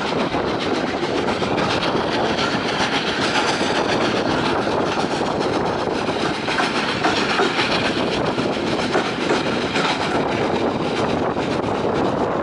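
Heritage railway coach running along the line, its steel wheels clattering over the rails in a steady rush of noise, heard from an open carriage window.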